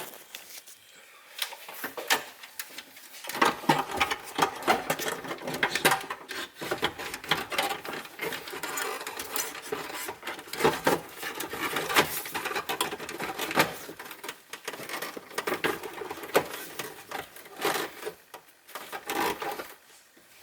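Hard plastic interior trim, a car's glove box, being handled and fitted: a busy run of clicks, knocks and rattles, quietest in the first few seconds.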